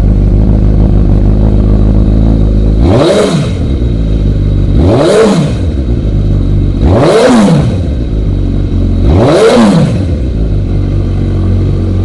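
Suzuki GSX-R1000 inline-four idling through a Yoshimura aftermarket muffler, then blipped four times, about two seconds apart, each rev rising and falling back to idle. The engine revs up freely and cleanly.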